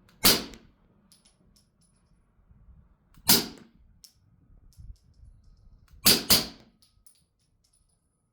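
Four suppressed shots from a 9mm pistol firing subsonic 147-grain rounds through a Dead Air Ghost 45M suppressor in its long configuration. Two single shots come about three seconds apart, then a quick double about a third of a second apart near the end. Each is a sharp, muffled report with a short tail, and faint light ticks fall between the shots.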